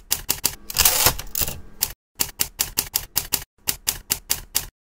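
Typewriter keys clacking in quick runs of about five to six strikes a second, broken by short pauses, with a longer noisy stretch about a second in.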